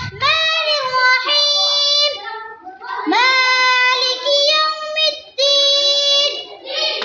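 A child's voice reciting the Quran in melodic tilawat style: high, long held notes with ornamented turns, in three phrases separated by brief breaths.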